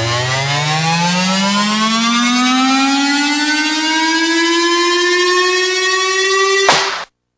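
A siren-like tone in the backing soundtrack, winding up in pitch over several seconds and levelling off, then cutting off abruptly with a click about seven seconds in.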